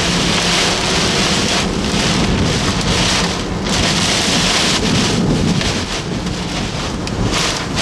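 Heavy rain beating on a car's windshield and roof, heard from inside the car as a dense, steady wash of noise.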